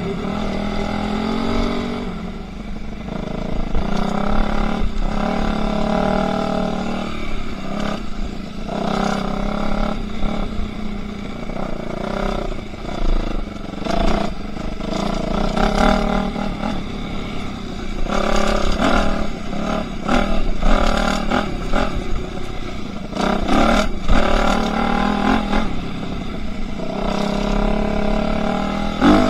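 Enduro motorcycle engine revving up and falling back again and again as it rides off-road, with knocks and clatter from the bike over rough ground.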